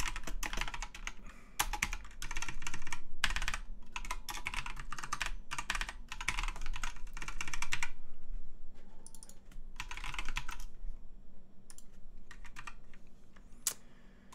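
Typing on a computer keyboard: quick runs of key clicks with brief pauses, thinning out to a short burst and scattered single keystrokes after about eight seconds.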